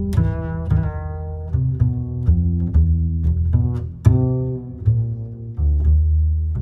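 Background instrumental music: a melody of low plucked string notes, each struck sharply and then fading, about one or two a second.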